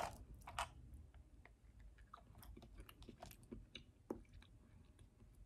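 Faint mouth sounds of someone tasting a drink: a short sip from a plastic cup at the start, then scattered soft lip and tongue clicks.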